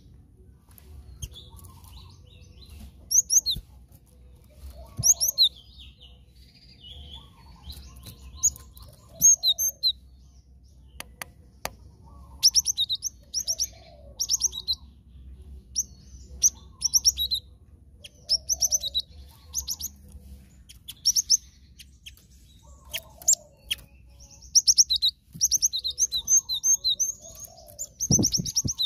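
Cinereous tit (glatik batu) calling in clusters of sharp, high chirps, repeated every second or two, over a faint low hum. Near the end come a few heavy wing flaps of a bird fluttering in its cage.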